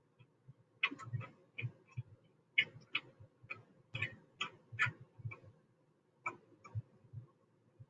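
CNC hold-down clamps being slid into place and screwed down onto the machine bed: irregular light clicks and knocks, a couple of dozen over several seconds.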